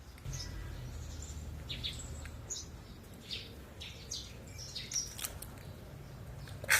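Small birds chirping: short high chirps every second or so, over a low steady rumble, with a louder, sharper chirp near the end.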